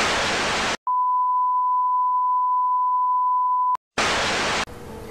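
Television static hiss, then a steady single-pitched test-tone beep lasting about three seconds that cuts off abruptly, followed by another short burst of static hiss: a 'technical difficulties' sound effect.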